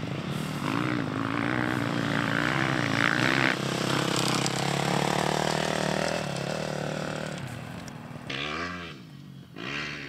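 Dirt bike engine revving up and down as the rider works the throttle, then growing fainter as the bike rides away. A short burst of revving returns near the end.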